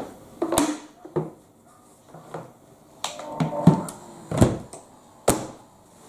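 Sharp plastic knocks and clicks as the parts of a Numatic Henry vacuum cleaner are handled and refitted: the filter set into the red tub and the motor head lowered back on. There are several separate knocks, the vacuum motor is not running.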